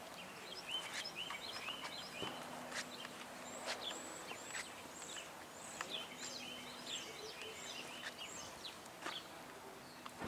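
Small birds chirping and twittering, many short calls overlapping throughout, with a few soft knocks in between.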